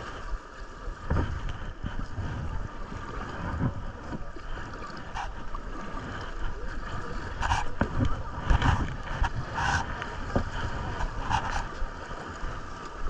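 Moving river water rushing around a kayak, with rumbling wind buffeting on the microphone and several short splashes in the second half.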